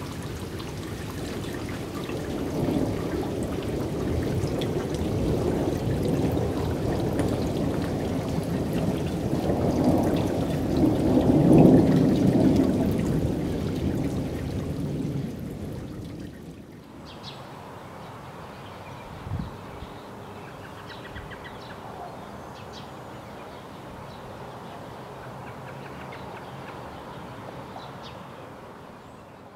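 Thunderstorm: a long, deep rumble of thunder over heavy rain, swelling to its loudest about twelve seconds in and dying away by about sixteen seconds. After that, lighter steady rain with scattered drops and one short thump.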